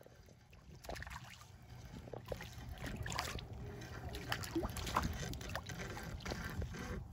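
Small splashes and sloshing in shallow water at a lakeshore, a quick irregular run of them starting about a second in, as something moves through the water close to the bank.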